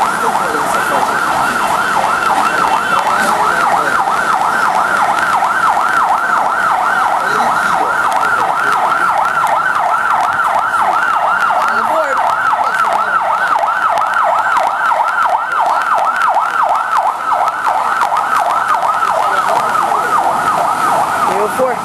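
Commuter train's door warning alarm sounding continuously as a loud, rapidly warbling electronic tone while passengers board.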